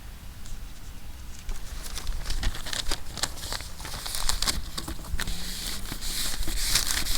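Sheets of newspaper rustling and crinkling, with scattered crackles, as they are handled and laid over the car for masking, growing busier after about two seconds. Wind rumbles on the microphone underneath.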